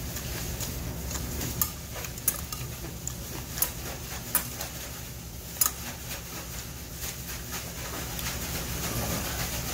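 Metal spoon clinking and scraping against a stainless steel bowl as barley bibimbap is mixed, with about five sharp clinks in the first six seconds. Chewing goes on underneath.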